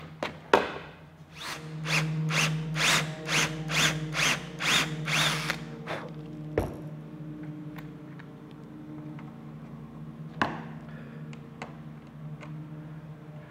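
Cordless drill run in about ten short, evenly spaced bursts over some four seconds, working screws into a wooden toe rail; later a sharp knock and a click.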